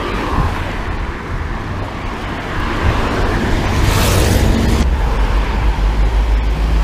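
City road traffic heard from a moving bicycle, with a steady low rumble of wind on the microphone; a louder rush of passing traffic about four seconds in.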